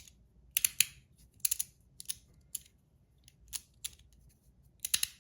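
Metal fidget toy being played with in the hand: sharp clicks and clacks at irregular intervals, several coming in quick pairs.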